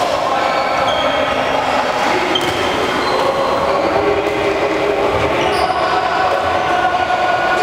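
Steady, loud din of an indoor badminton hall, with drawn-out squealing tones that shift in pitch over a wash of noise.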